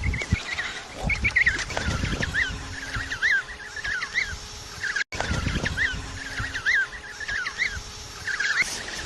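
Many penguins calling at once in a colony: short chirping calls that bend up and down in pitch, overlapping one another, over patches of low rumbling noise. The sound drops out for an instant about five seconds in.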